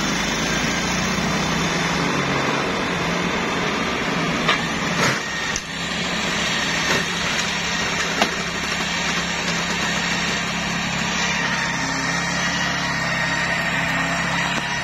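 Homemade flail mower running steadily, its engine and spinning flail shaft giving an even mechanical noise, with a few short sharp knocks.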